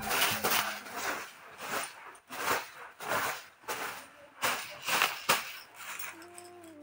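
Soft broom brushing dust off a bed sheet: repeated swishing strokes, about one or two a second.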